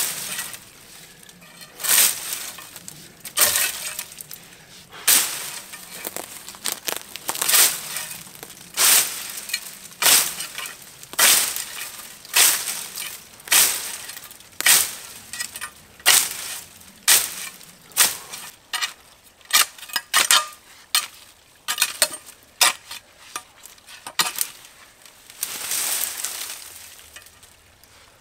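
Dry brambles being hacked and broken down by hand, a sharp crackling snap roughly once a second, coming a little faster in the second half, with a longer rustle of vegetation being dragged aside near the end.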